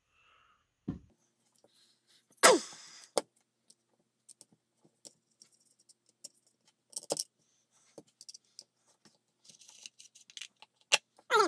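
Scattered clicks and light metallic rattles of small pistol parts, pins and springs handled while a Byrna HD air pistol is put back together, sped up. A sharp falling squeak about two and a half seconds in, and another near the end.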